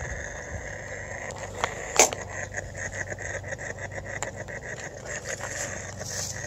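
Propane torch flame of an oxalic acid vaporizer running with a steady hiss as it heats the stainless burn chamber, with a few sharp clicks of metal handling, the loudest about two seconds in.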